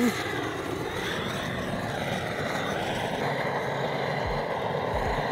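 Handheld gas torch on a canister burning with a steady hiss as its flame is held into stacked firewood to light it.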